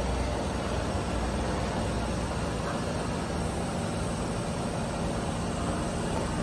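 Sydney Trains electric train running at the station: a steady rumble with a low hum that eases off about three seconds in.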